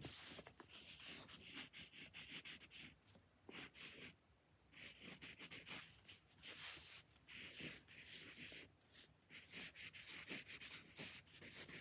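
Faint scratching of a wooden pencil writing on paper, in short strokes with little breaks and one longer pause about four seconds in.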